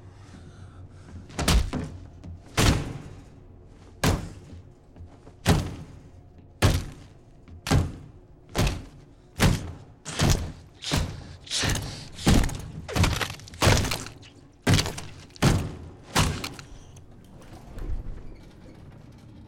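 A boot stomping again and again on a man's head on an elevator floor, heard as a film sound effect of heavy impacts. There are about seventeen of them, first a bit more than a second apart, then coming faster, every second or so less. They stop with one fainter thud near the end.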